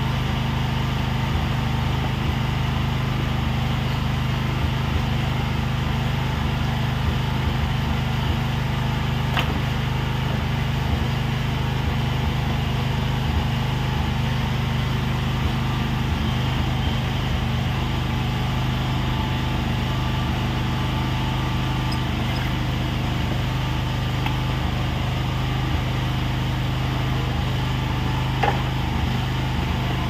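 Steady, unchanging drone of a running engine or motor, with two short sharp clicks, about nine seconds in and near the end.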